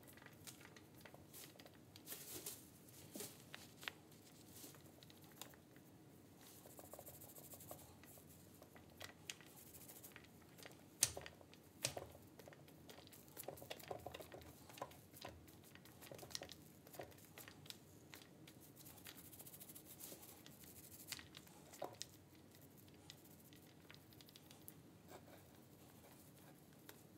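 Faint sounds of a cast-iron bench vise being painted with a small foam paint roller: soft sticky rolling and light crinkling, broken by scattered small knocks, the sharpest one about halfway through.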